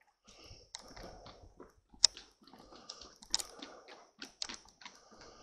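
Irregular crunching and crackling of dry leaves and twigs underfoot, with a sharp snap about two seconds in and another about three and a half seconds in.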